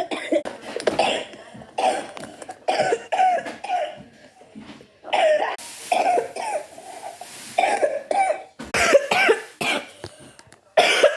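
A person coughing over and over, a long run of short separate coughs, many of them with a brief voiced rasp.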